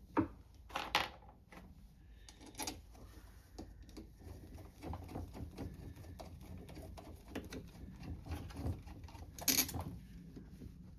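Small clicks and taps of screws and a screwdriver working on a carburetor as the screws are started in, with a sharper click about nine and a half seconds in.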